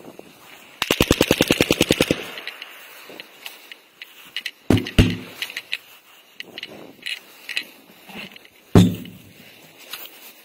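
Machine-gun burst of rapid, evenly spaced shots about a second in, lasting about a second and a half, then a few loud single bangs around the middle and another near the end: live-fire noise on a military infiltration course.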